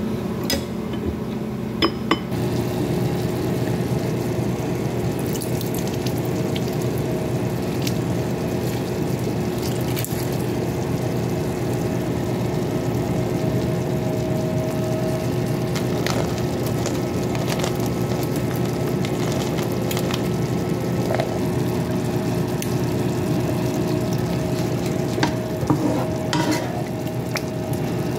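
Vegetables frying in a pan with a steady sizzle, and now and then a utensil clicking against the pan as they are stirred.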